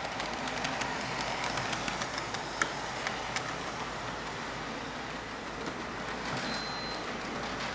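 HO scale model train, an Amtrak E60CP electric locomotive with three Amfleet cars, rolling past on the track with a steady rumble and irregular sharp clicks from the wheels on the rails. A short, louder steady electronic tone sounds about six and a half seconds in.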